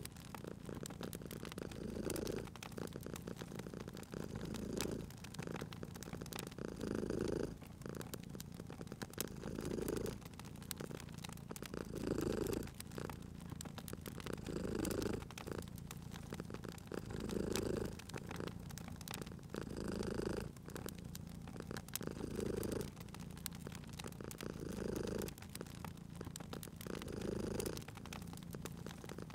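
Domestic cat purring steadily, its purr swelling and easing about every two and a half seconds with each breath. Small sharp crackles from a wood fire run through it.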